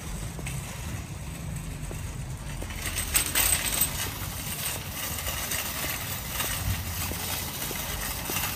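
Metal shopping cart rolling across an asphalt parking lot: its wheels rumble and the wire basket and its load rattle and clink, rattling hardest about three to four seconds in.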